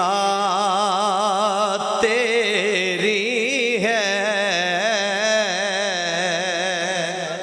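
A man singing a naat, a devotional Urdu-Punjabi poem, drawing out long held notes with a strong wavering vibrato, moving into a new phrase about two seconds in.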